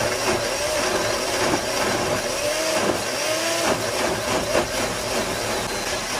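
Hamilton Beach personal blender running steadily, pureeing soaked raisins and cherries in sorrel juice. The motor's pitch dips and rises as the fruit churns.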